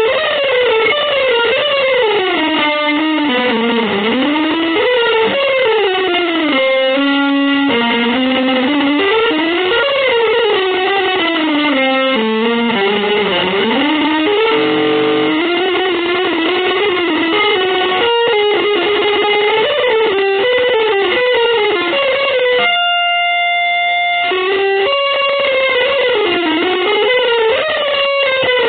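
Instrumental music in an avant-garde, free-jazz style. A single lead line slides and bends up and down in pitch almost without pause, with a few held notes and a longer steady held sound about 23 seconds in.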